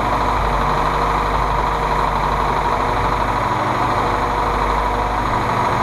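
Ford GPW jeep's four-cylinder flathead engine idling steadily at an even speed, running after its first start-up.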